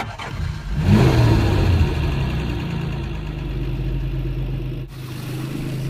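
Jaguar Mk2's 3.8-litre straight-six engine being started: it catches and flares up in a rising rev about a second in, then settles into a steady idle.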